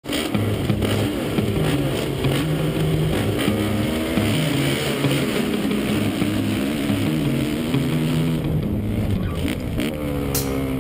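Motocross dirt bike engines at full throttle, the pitch climbing and dropping with the throttle and gear changes, with a rising rev near the end.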